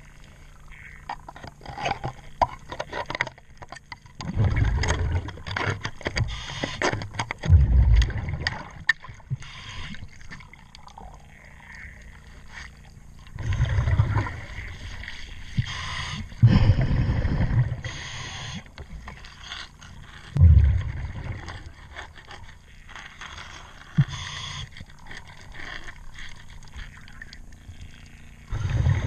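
Scuba diver's exhaled bubbles rumbling in bursts every few seconds underwater, with scraping and clicking of a cleaning tool on a boat's hull in between.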